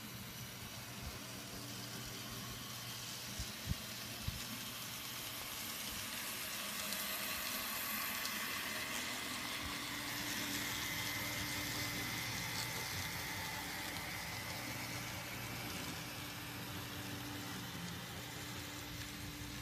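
N scale model freight train running past on its track: a steady hiss of wheels rolling on the rails over a low motor hum, swelling as the boxcars pass close by in the middle and easing as the train moves on. A few sharp clicks sound a few seconds in.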